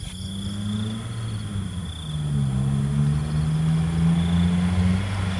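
Small hatchback's engine running as the car accelerates along the road on a 40 km/h braking test run. The engine note dips briefly about two seconds in, then climbs steadily.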